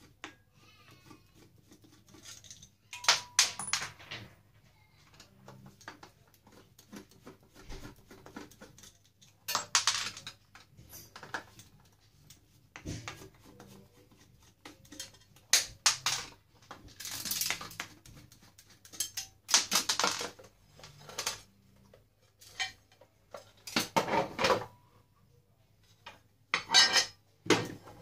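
Irregular metallic clicks, clinks and scrapes from a screwdriver and small metal parts as a heat press's metal control box is taken apart. The sounds come in short clusters with quiet gaps between them.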